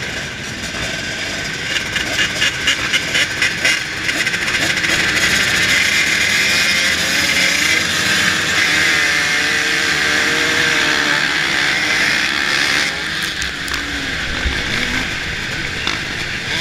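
A pack of motocross bikes, among them a 2005 Suzuki RM250 two-stroke, revving with quick throttle blips at the start line. About four seconds in the engines go to sustained full throttle, rising and falling in pitch, as the pack launches off the line.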